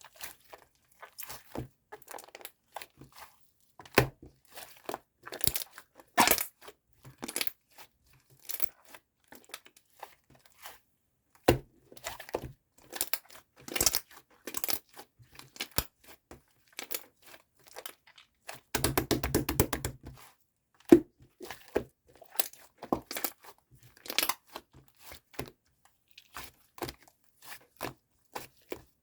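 Close handling noise in a small room: irregular clicks, taps and short scratchy rustles, with a rapid rattling run of clicks about two-thirds of the way through.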